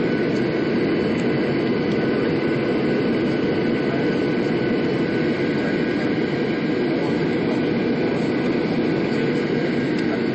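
Boeing 737-800 on short final, heard from inside the cabin: its CFM56 turbofan engines and the rushing airflow make a steady, even noise with a faint high whine, just before touchdown.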